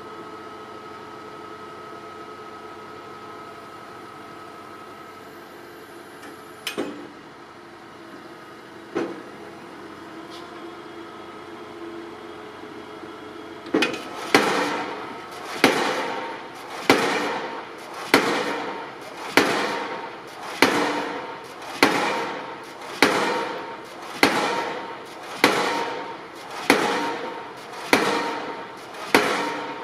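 A piling rig's engine runs with a steady hum, with two single sharp knocks. About fourteen seconds in, the pile hammer starts driving a steel I-beam into the ground: loud regular blows about one every 1.2 seconds, each ringing out briefly.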